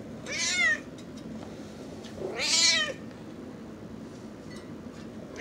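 Domestic cat meowing twice while being played with roughly, each call about half a second long and rising then falling in pitch; the second call is the louder.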